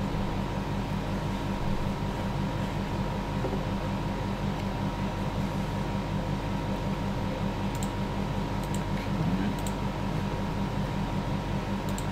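Steady fan-like mechanical hum of room background noise, with a faint constant tone and a few faint ticks in the second half.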